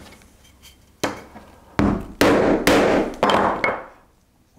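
Hammer blows on a wooden block, driving M5 T-nuts into the wooden base panel of a speaker cabinet. There are about five sharp knocks, a little under half a second to three quarters of a second apart.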